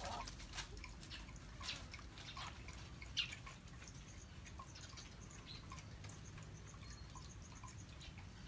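Faint drips and small splashes of soapy water as hands lather a puppy in a bucket, scattered irregularly, with a slightly louder splash about three seconds in.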